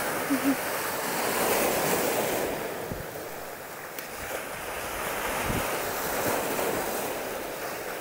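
Sea surf washing on a rocky shore with strong wind blowing over the microphone, a steady rush that swells, eases about three seconds in and builds again, with a few low thumps of wind buffeting.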